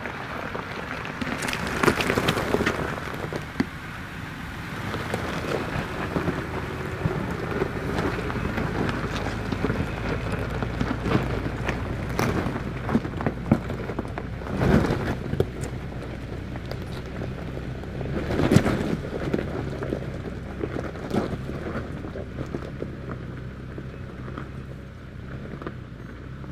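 Toyota 4Runner's engine running at low revs as it crawls up a steep, rocky off-road hill. Several sharp knocks and crunches from the tyres and suspension on rock stand out, the loudest about two seconds in, around twelve to fifteen seconds and about eighteen seconds in.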